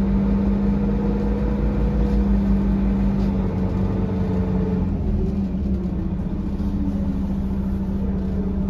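A 2004 Mercedes-Benz O500LE city bus under way, heard from inside its passenger cabin: a steady low drone with road rumble.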